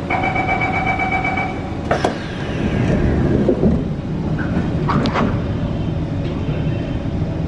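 C151 train's door-closing warning tone sounding steadily for under two seconds, then the sliding doors shutting with a sharp knock about two seconds in, followed by a falling whine and a second sharp clunk about five seconds in, over the steady hum of the standing train.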